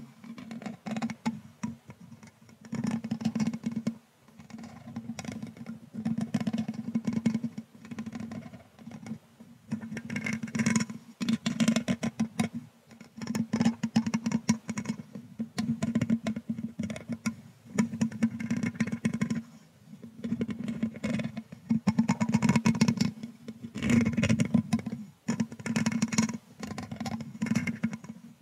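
A thin brush stroked across a microphone's metal mesh grille, close to the capsule. The strokes come over and over, roughly one every two seconds, with short pauses between them.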